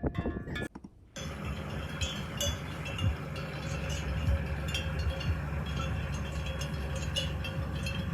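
Bells on grazing livestock clinking irregularly, many light scattered strikes, over a steady low rumble. Wind gusts on the microphone before the clip cuts about a second in.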